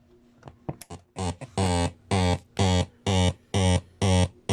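Panasonic RX-5100 radio-cassette recorder in cassette play mode, giving out a loud buzzy tone in short pulses about twice a second, after a few faint clicks. This frequent, annoying noise is the cassette-section fault; its cause is not known.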